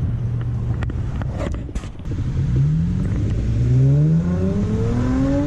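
Car engine running steadily, then accelerating from about two and a half seconds in, its pitch climbing in several successive rises as it gathers speed.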